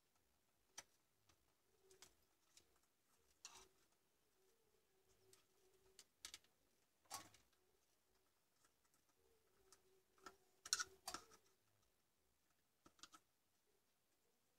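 Faint, scattered clicks and taps of a screwdriver and fingers working at a UPS's back panel and screws, with a short cluster of louder clicks about two-thirds of the way through.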